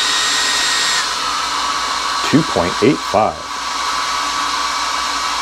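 Small handheld hair dryer running with a steady blowing rush and whine. About a second in, its whine drops to a lower pitch as it is switched to a lower setting. A man makes a few brief wordless vocal sounds in the middle.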